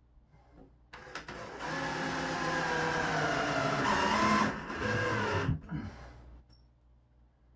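A handheld electric power tool's motor running for about four and a half seconds, its pitch wavering and dipping under load before it stops.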